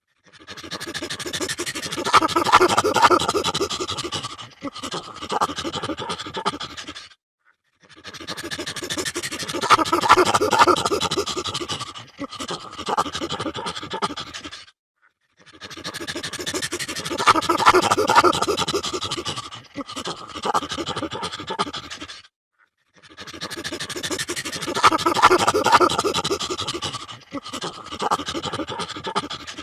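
Frightened chimpanzee making rapid, breathy panting calls: a long run of quick pulsed pants, then a shorter run. The same call sequence repeats four times with brief silences between.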